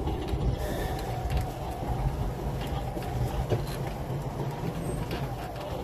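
A UTV's engine running steadily at low speed while it tows a quad ATV on a rope, heard from the driver's seat, with scattered rattles and creaks.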